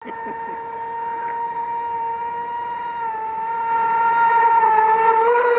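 Fei Lun FT012 RC speedboat's brushless motor running at speed on a 3S LiPo: a steady high whine with clear overtones, growing louder and rising slightly in pitch near the end.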